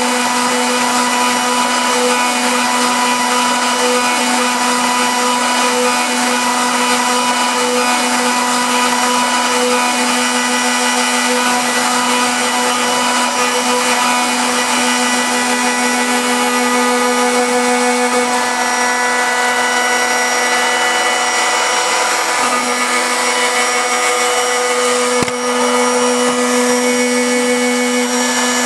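CNC router spindle running steadily while its small end mill engraves lettering into a fibreboard lid: a steady machine whine over cutting noise. There is one brief knock near the end.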